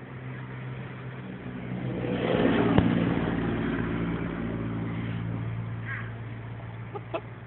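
Car engine running, growing louder from about two seconds in and easing back down after about three and a half seconds, with a single sharp click near the loudest point.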